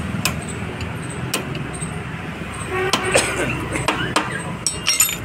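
Sharp metal clicks and taps of tools and parts being handled during work on a scooter, over a steady rumble of road traffic, with a short vehicle horn toot about three seconds in.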